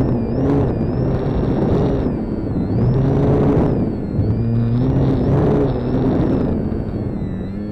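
Electric motor and propeller of a Durafly Tundra RC plane in flight, picked up by a camera mounted on the plane: a whine that rises and falls in pitch, over a steady rush of air.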